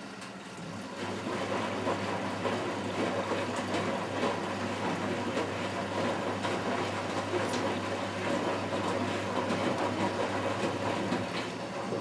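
Miele Automatic 416 front-loading washing machine tumbling a wash: the drum motor starts with a steady hum about a second in and turns the drum for about ten seconds, wet laundry and water sloshing inside, then stops just before the end.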